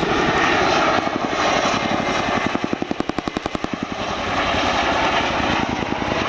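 Boeing Chinook HC4 tandem-rotor helicopter flying overhead, its rotors beating rapidly throughout. About midway through, the beating sharpens into a distinct chopping of roughly eleven blade beats a second as the helicopter banks away, then smooths out again.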